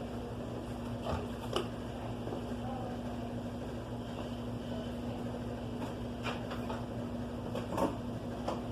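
Stihl FS 290 brushcutter's two-stroke engine running steadily, with a few short clicks, and carrying an abnormal noise from inside the engine, not the clutch. The mechanic suspects the crankshaft, though it could be the piston's needle bearing or a main bearing.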